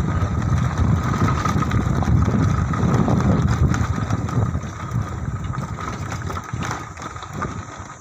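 Motorcycle engine running and tyres rumbling over a dirt road while riding, growing quieter over the last few seconds as the bike slows.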